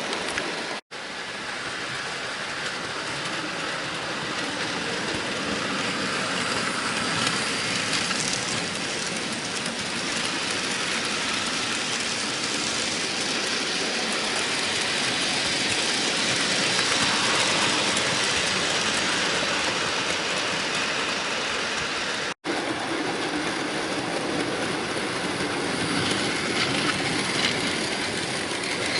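Bachmann model train running on the layout's track: a steady motor whirr and the clatter of wheels over the rails, broken twice by a momentary dropout to silence.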